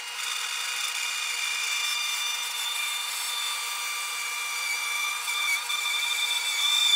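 Bandsaw slowly cutting through a log of very hard arbutus (madrona) wood fed on a sled jig: steady sawing noise with a high-pitched whine, growing a little louder near the end.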